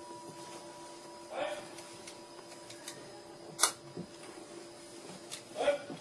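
Sound-art performance: faint steady electronic tones, one of which fades out early, with scattered sharp clicks, the loudest one just past halfway, and two short softer sounds.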